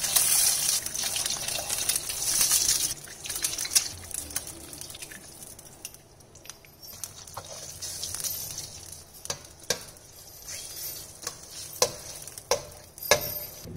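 Eggs sizzling as they are cracked into hot oil in a stainless steel wok, loudest for the first three seconds and then dying down. Sharp taps of eggshells being cracked and of a steel slotted spatula against the wok come through, most of them near the end as the eggs are stirred.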